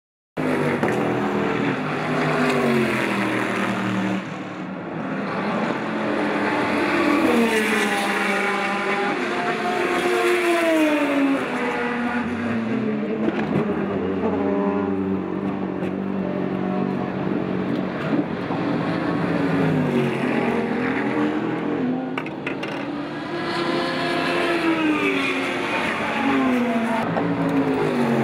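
Race car engines on the track at speed, several overlapping, their pitch repeatedly rising and falling through gear changes and passes.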